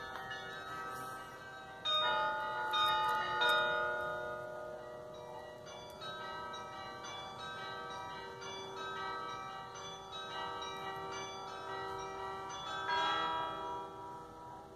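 Church-tower carillon playing a tune: a run of struck bell notes at different pitches, each ringing on under the next. There is a louder group of strikes about two seconds in and another near the end.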